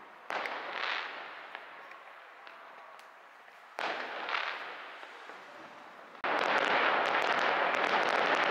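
Fireworks and firecrackers going off: two sudden bangs, each fading over a second or so, then from about six seconds in a continuous dense crackling.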